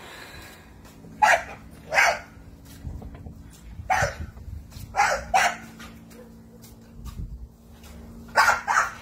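A dog barking: seven short barks in spaced groups, two single barks, then one, then two pairs near the end, over a faint steady hum.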